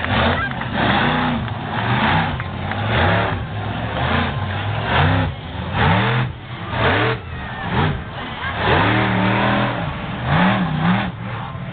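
Bigfoot Bessie monster truck's engine revving hard through a freestyle run. The pitch swings up and falls back again and again, about once a second, as the throttle is blipped and released.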